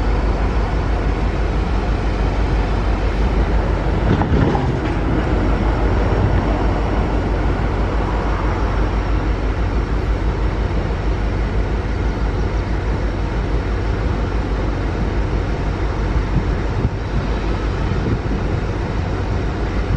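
Empty double-stack freight train rolling past: a steady, loud rumble of the cars on the rails, with a single knock about four seconds in.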